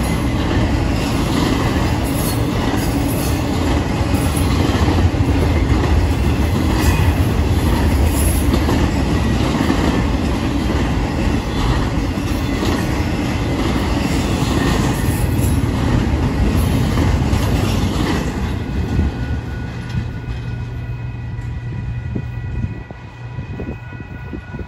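Union Pacific intermodal freight train passing at close range: a steady rumble of steel wheels with clicks over rail joints. It fades about three-quarters of the way through as the last cars go by.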